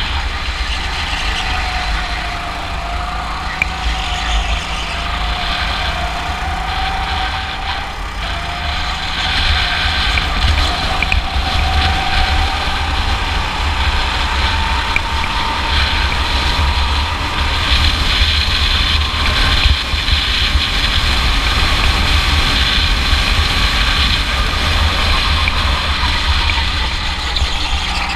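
Sodi rental go-kart's small engine running under load, its pitch wavering with the throttle, slowly climbing and then dropping near the end. Heavy wind rumble on the microphone underneath.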